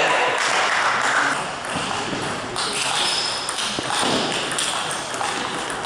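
Sports-hall ambience between table tennis points: a few scattered taps of a celluloid ping-pong ball, with faint voices echoing in the hall.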